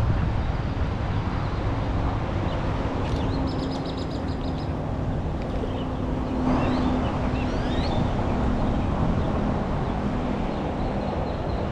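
Wind buffeting the microphone under a steady low hum, with birds chirping and whistling in the middle: a quick run of high chirps about three seconds in, then rising whistled calls a few seconds later.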